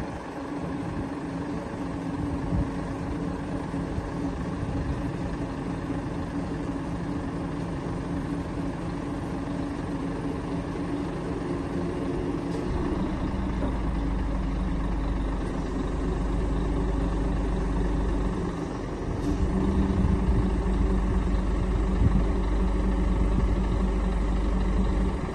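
Volvo FM12 truck's diesel engine running steadily to drive the Hiab 220C crane's hydraulics as the boom extends. About halfway through a deeper low rumble joins in. It drops out for a moment and comes back louder.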